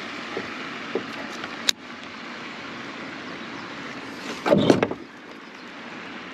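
A fish striking a topwater lure: a loud splash about four and a half seconds in, over a steady background hiss. A sharp click comes just under two seconds in.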